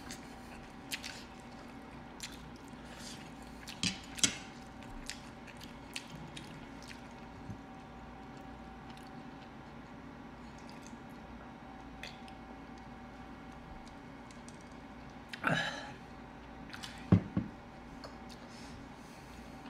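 Close-up eating sounds: chewing and biting into fried chicken wings, with scattered small mouth smacks and clicks over a faint steady hum. Near the end comes a brief louder rustle, then a knock.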